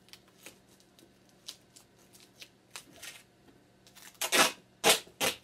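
Duct tape being pulled off the roll in three short loud rips near the end, after a few seconds of faint crinkling and tapping as tape is handled and pressed down.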